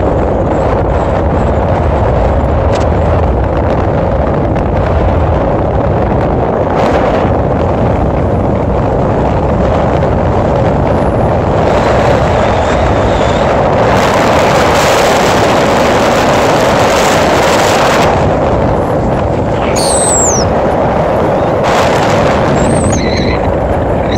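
Mitsubishi 4x4 driving over a gravel desert track: steady rumble of tyres on gravel with engine and wind noise, growing louder for a few seconds past the middle.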